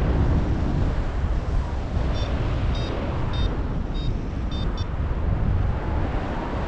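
Strong wind buffeting the camera microphone in flight, with a run of about six short high beeps from a paragliding variometer, roughly two a second, about two seconds in.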